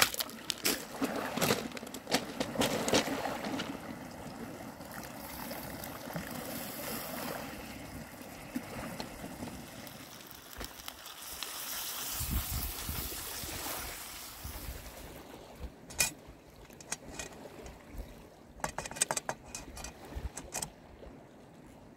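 Gentle seawater lapping and trickling among shore stones. In the last quarter, a run of sharp clicks and knocks as a wooden spoon stirs porridge in a metal pan.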